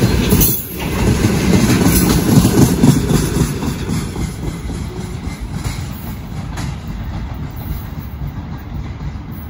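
Freight train wagons rolling past on the track: a steady low rumble with wheel clatter that fades over the second half as the train draws away.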